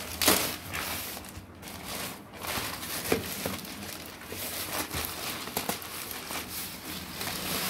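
Plastic courier mailer bag crinkling and rustling as hands pull it off a cardboard box, with scattered crackles and a louder burst of crinkling just after the start.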